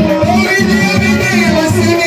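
Live Moroccan popular music: men singing into microphones over electronic keyboard, with a steady driving beat.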